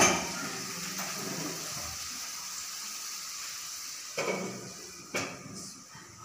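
Chicken handi simmering and sizzling in a pan on a small stove, a steady hiss. A wooden spoon knocks against the pan twice near the end.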